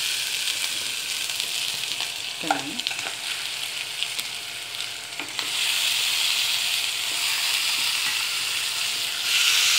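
Hot oil sizzling in a pan with frying green chillies, ginger and garlic, with a few light spatula clicks. The sizzle grows louder about halfway through and again near the end as raw chicken pieces go into the hot oil.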